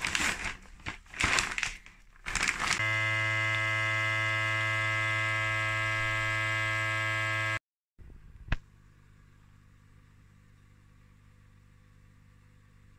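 Plastic vacuum-seal bag crinkling as a bone-in ribeye steak is pushed into it, then a vacuum sealer's pump running with a steady hum for about five seconds until it cuts off suddenly. A single sharp click follows.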